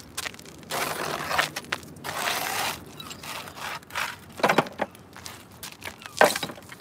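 Rusty scrap metal being gathered off concrete pavement and set back onto a loaded wagon: two stretches of scraping and grating, then several sharp clanks as pieces land on the pile.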